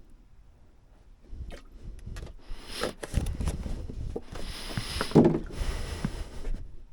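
Hands working on parts: irregular scraping, rustling and knocks that start about a second in, with two longer rough rubbing stretches.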